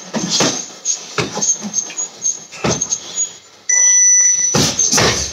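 Punches and kicks thudding into a heavy punching bag at an irregular pace. About two-thirds of the way through, an electronic timer beeps for about half a second, and two hard hits land in quick succession right after it.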